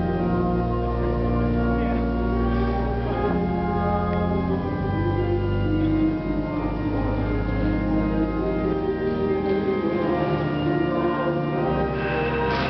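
Church pipe organ playing slow, held chords over deep bass notes, the chords changing every few seconds.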